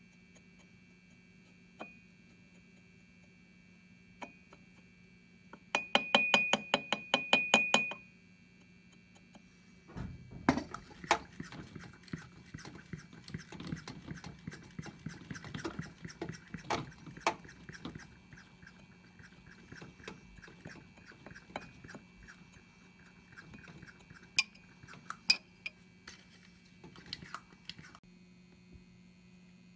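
Handling noises: irregular clinks, knocks and scrapes, with a short burst of fast rattling about six seconds in, over a steady electrical hum.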